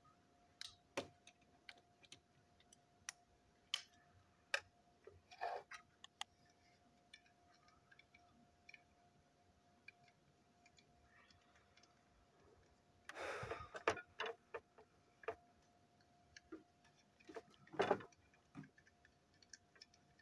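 Plastic parts of a motorized toy locomotive clicking and tapping as they are handled and pried apart, with two short louder clatters, one about two-thirds of the way through and one near the end. A faint steady high hum sits underneath.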